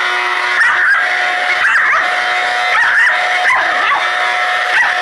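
A dog yipping and whining at a running vacuum cleaner, short high calls about once a second over the vacuum motor's steady whine.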